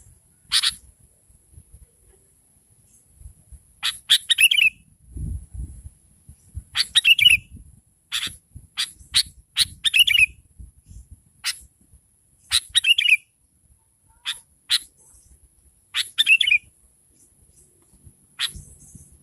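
Sooty-headed bulbul (kutilang) giving short, sharp call notes at irregular intervals, about a dozen in all; several end in a quick falling chatter.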